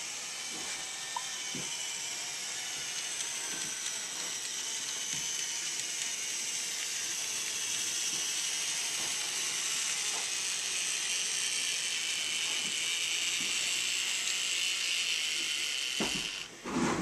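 Small N scale diesel switcher model running slowly, its tiny motor and gears giving a steady high-pitched whine with faint ticks from the wheels on the track, growing a little louder. A few low knocks come about a second before the end.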